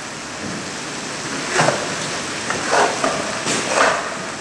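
Steady sizzling of food frying in a large pilaf cauldron, with a few louder strokes over it about a second and a half in and again near the end.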